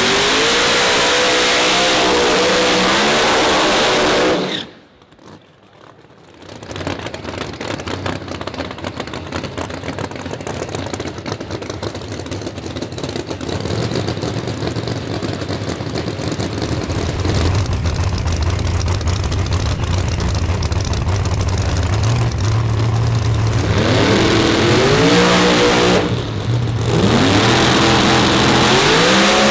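Drag car's engine revving hard, its pitch rising and falling, until a sudden cut. The engine then runs low and steady under a wash of track noise. Near the end it revs up again in two rising pulls.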